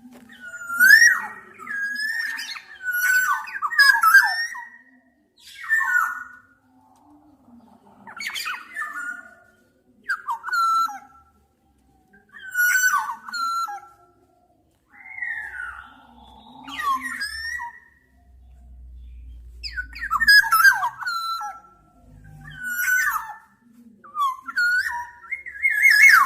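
Black-naped oriole singing: short fluty whistled phrases of gliding notes, repeated every second or two, some with a harsher, scratchy edge.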